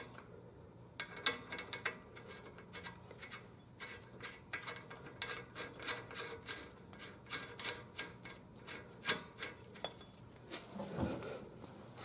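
Faint, irregular metallic clicks and scrapes, a few a second: the new front axle nut being threaded by hand over its washer onto the axle shaft of the new hub assembly.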